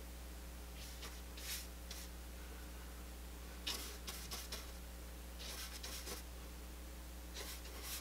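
Flat bristle brush loaded with oil paint stroking across paper: several short, faint scratchy strokes, some in quick groups, over a steady low hum.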